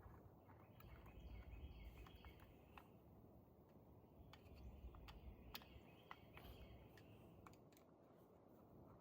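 Mostly quiet, with faint scattered clicks and ticks of a screwdriver turning the small screws that hold a new idle air control valve, and faint birdsong in the background.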